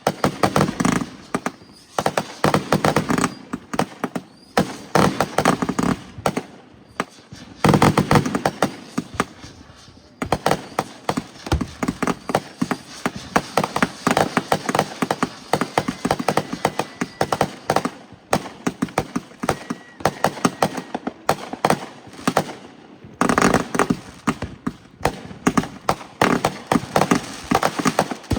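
Fireworks going off in dense rapid runs of sharp crackling pops, firecracker-like, in several bursts with brief lulls between them.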